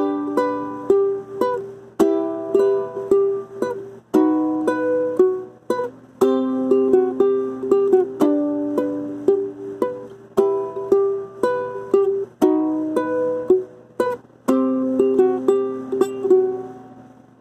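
Acoustic ukulele played alone, with notes and chords plucked about every half second in phrases of roughly two seconds. The playing stops near the end and the last notes ring out.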